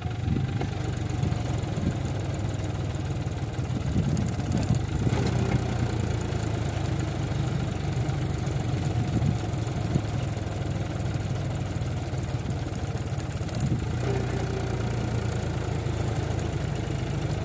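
John Deere tractor's diesel engine running steadily under load as the tractor strains to pull a loaded trailer out of deep sand where it is stuck; the engine gets louder right at the start.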